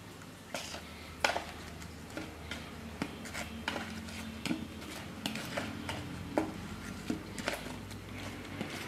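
Spoon scraping and tapping in a plastic bowl of powdered sugar as a fried donut is tossed and coated: scattered light clicks and rubbing over a faint steady low hum.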